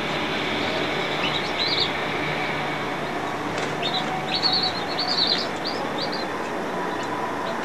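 Newly hatched chicks peeping: a few short high peeps about a second in, then a quicker run of peeps from about three and a half to six seconds in. A steady noisy hum runs underneath.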